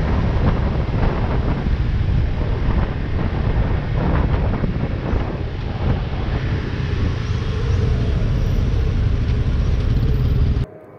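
AKT CR4 162 motorcycle's single-cylinder engine running on the move, with heavy wind rush on the microphone; both cut off suddenly near the end.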